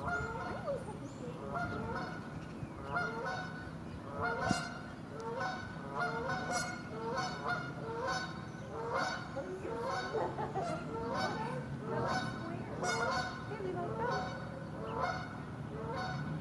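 Geese honking over and over, about two calls a second.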